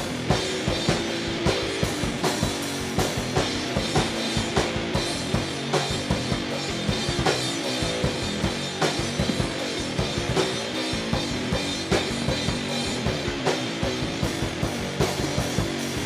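Rock band playing an instrumental stretch of a song, the drum kit keeping a steady beat under bass and guitar.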